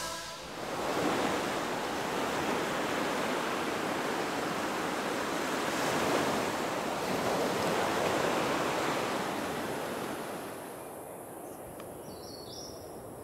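Ocean surf washing onto a beach in a steady hiss of breaking waves, dropping to a quieter, duller hush about ten seconds in.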